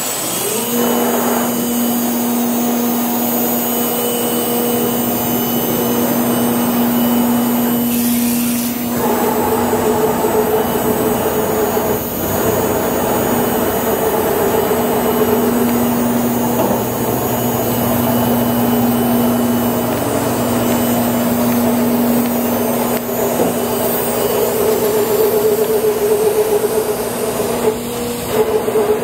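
Thermwood CNC router running. About half a second in a whine rises and settles into a steady tone, over a constant rush of air and machine noise.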